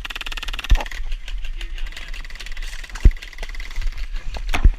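Airsoft electric gun firing on full auto: a fast, even buzzing stream of shots from the gearbox and motor that starts suddenly and keeps going for several seconds. A few heavy thumps land at about a second in, around three seconds and near the end.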